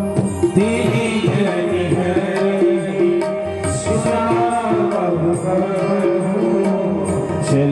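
Devotional bhajan accompaniment of harmonium and tabla: the harmonium holds steady chords while the tabla plays a running pattern, its deep strokes sliding up and down in pitch.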